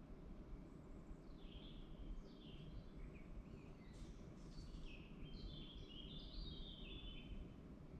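A songbird singing faintly, with a run of short chirping phrases that turn into rapid trilled notes, over a steady low rumble of background noise.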